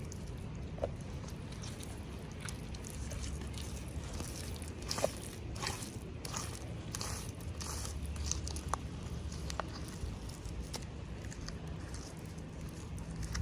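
Packaging from a miniature toy unboxing being handled, with crinkles and small clicks. The crinkles are thickest in the middle, over a steady low hum.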